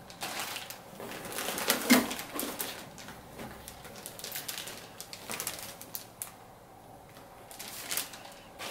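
Plastic bags of model-kit parts on sprues crinkling and rustling as they are handled and lifted over a cardboard box, with a sharp knock about two seconds in.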